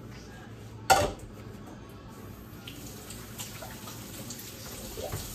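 Washing up at a kitchen sink: a sharp clatter of cookware against the sink about a second in, then the faucet running from about two seconds in, with light knocks of dishes in the water.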